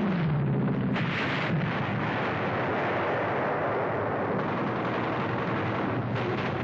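Continuous anti-aircraft gunfire and explosions in a dense roar. At the start a plane's engine note falls in pitch, and a louder blast comes about a second in.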